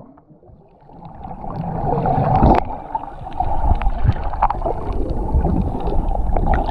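Muffled underwater sound picked up by a GoPro submerged in the sea: water rumbling and sloshing around the camera, with scattered bubble pops and clicks as swimmers move nearby. It drops almost to quiet as the camera goes under, then swells over the next second or two.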